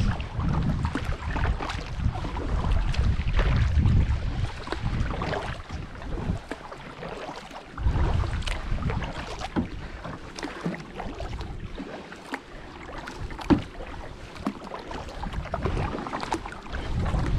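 Kayak paddle strokes: the blades dipping and splashing, with water dripping off them, over a low rumble of wind on the microphone that comes and goes. A single sharper knock sounds about two-thirds of the way through.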